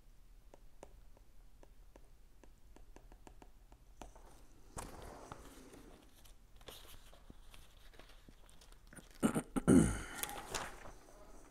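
A stylus tapping and scratching on a tablet's glass screen while handwriting, a string of quick light ticks. Rustling follows, then about nine seconds in a louder, brief noisy sound with a falling pitch, the loudest thing heard.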